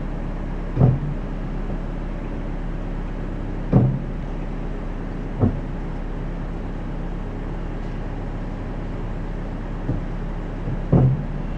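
Scion FR-S at low speed with a steady low drone, while the brakes are eased on and off; about five short low-pitched creaks come a few seconds apart, the brake noise the owner has heard since new and finds worse in winter.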